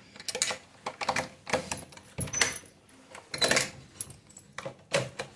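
Keys jangling and a door lock clicking and rattling as the door is locked with a key, in a string of short irregular metallic rattles.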